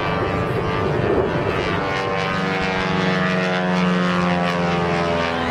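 A twin radial-engine Beechcraft 18 flies past with its engines and propellers droning. About two seconds in the drone becomes a clearer pitched hum, and its pitch sinks slightly as the plane goes by.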